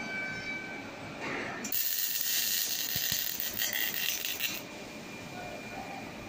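Robotic MIG welding arc from a Fanuc S-430iW's torch: a loud, flickering high hiss starts abruptly just under two seconds in, runs for about three seconds and cuts off sharply as the short weld ends. Before it, a steady high whine stops about a second in.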